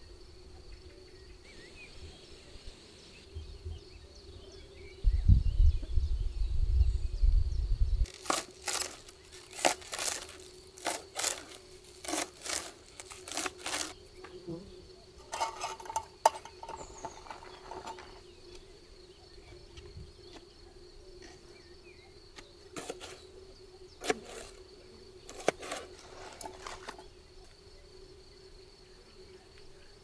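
Bursts of rustling and crinkling handling noise in two spells, over a steady insect drone, with a brief low rumble on the microphone a few seconds in.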